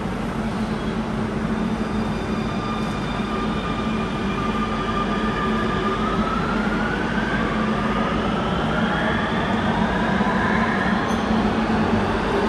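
Barcelona Metro Line 9 train pulling out of the station, heard from the platform over a steady rumble. Its electric drive whines in several tones that climb in pitch from about halfway through as it gathers speed.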